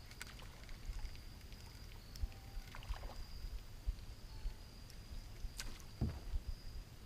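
Quiet lakeside ambience: a steady high-pitched drone runs throughout over a low rumble, with a few light knocks and taps, the clearest about six seconds in.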